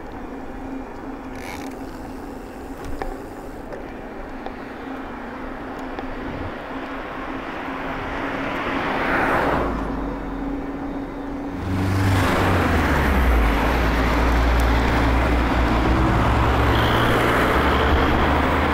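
Road traffic heard while riding along a road: a vehicle swells past about nine seconds in. About twelve seconds in a louder, steady low rumble and rushing noise set in.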